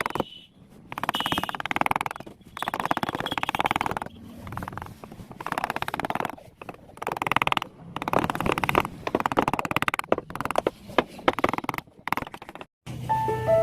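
Repeated rasping strokes of a hand tool working wood, each about a second long with short gaps between. Piano music starts near the end.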